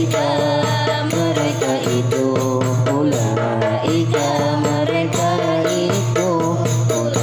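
A memorisation song: a voice chanting a melody over a regular percussion beat and a steady low drone.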